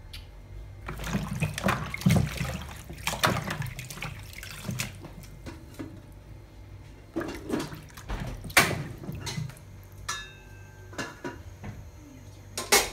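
A hand swishing and sloshing vegetables around in a plastic bowl of water, washing them. The sloshing comes in irregular bouts with short pauses between, and there is a sharper splash near the end.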